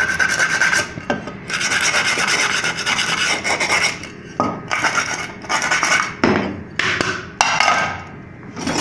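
A small piece of steel wire brush scrubbing the rim of an aluminium pressure-cooker lid to clean out grime: steady scratchy rubbing for the first few seconds, then shorter separate strokes. A few sharp knocks follow near the end as the lid is handled and set down on the metal workbench.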